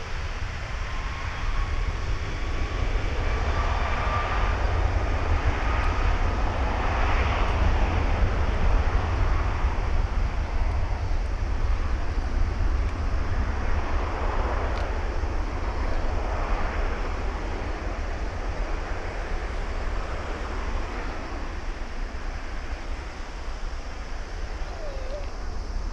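Airbus A330 airliner's twin jet engines at high thrust on the runway: a deep rumble and broad roar, with a faint whine that rises over the first few seconds as the engines spool up for the takeoff roll. The roar is loudest about eight seconds in and then slowly fades as the aircraft pulls away.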